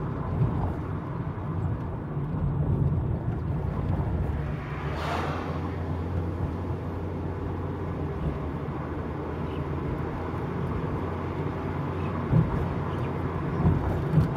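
Peugeot 307 CC driving with its roof down: a steady low engine and road hum with wind, heard from inside the open cabin. About five seconds in there is a brief whoosh that swells and fades, and near the end a few short thumps.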